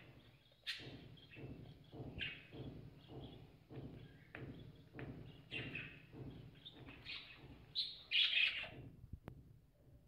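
Budgerigars chattering: a run of short chirps about twice a second, with a louder burst of chirping about eight seconds in, and a single sharp click near the end.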